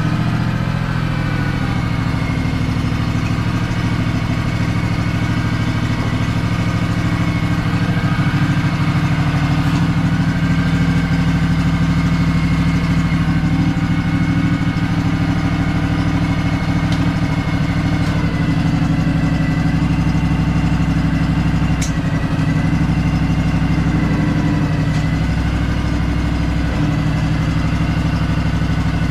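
Honda 16.5 hp twin-cylinder lawn tractor engine running steadily on choke, just after starting. It won't start without choke.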